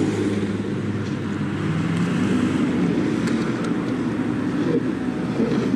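Vehicle engine running: a steady low rumble.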